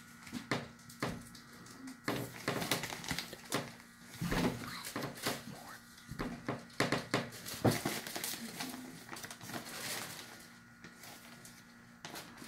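Plastic bag of shredded cheese crinkling and rustling irregularly as a hand reaches in and pulls out cheese, with scattered small clicks.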